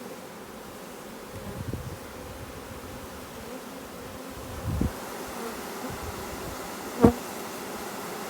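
Honeybee swarm buzzing steadily around an open hive box, with a couple of dull bumps and one sharp knock about seven seconds in.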